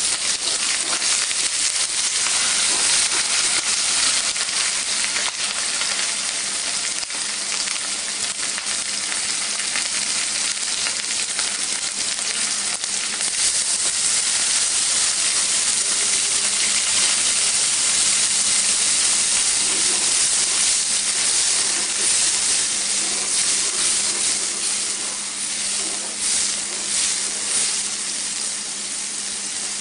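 Small fish and sliced onions sizzling in hot oil in an aluminium wok, a steady hiss, with a spoon stirring and scraping the pan near the end.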